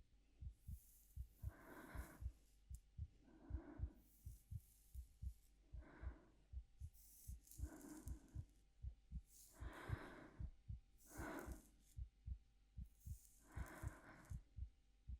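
Soft, close-miked heartbeat thumping steadily, with slow, gentle breaths in and out every second or two over it.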